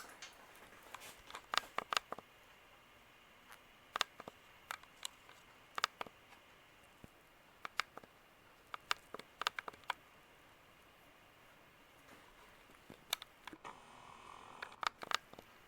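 Vintage Palm Air ceiling fan running at medium speed: a faint steady hum with light, irregularly spaced clicks and ticks.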